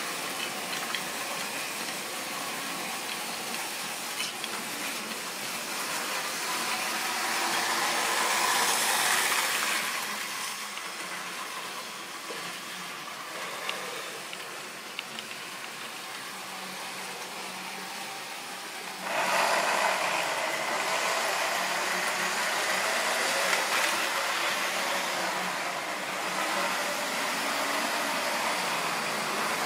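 Model railway trains running on the layout: a steady whirring of small electric motors and wheels on the track, which gets louder about two-thirds of the way through.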